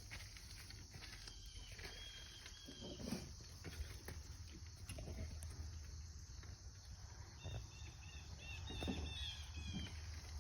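Faint outdoor ambience: groups of short high chirps, a few soft low thumps, and a steady low rumble underneath.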